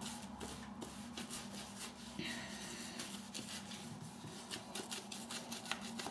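Shaving brush working soap lather onto a wet leg: a quick, irregular run of brushing strokes, with a low steady hum underneath.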